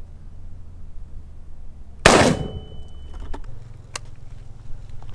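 A single rifle shot about two seconds in, followed by a short ringing tone that fades within about half a second.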